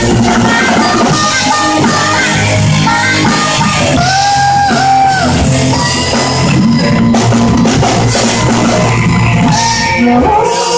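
Music with drums, guitar and bass, and sustained sung or held notes.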